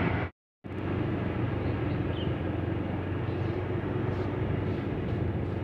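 Steady engine hum and road noise from a moving vehicle. The sound drops out completely for a moment just after the start.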